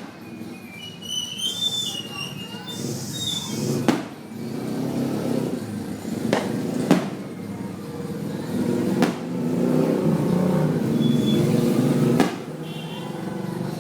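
New Year's Eve firecrackers and fireworks going off, five sharp bangs spaced one to three seconds apart over a steady low rumble of background noise.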